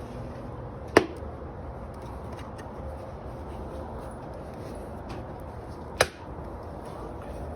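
Two sharp knocks of metal parts striking each other, about five seconds apart, the first with a short ring, while a spreader mounting part is worked into place.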